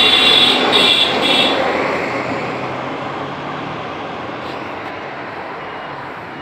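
Passing road traffic: a motor vehicle going by, loudest with a high whine in the first second and a half, then dying down to a steady traffic rumble.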